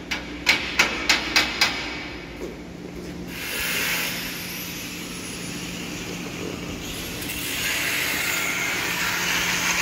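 A quick run of about six sharp knocks in under two seconds as the extractor fan's mounting is secured. From about three seconds in, a steady rushing noise with a low hum takes over.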